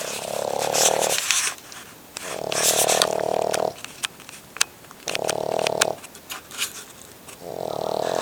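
Cavalier King Charles spaniel snoring in its sleep: four loud, rhythmic snores about every two and a half seconds, with short clicks in the gaps between them.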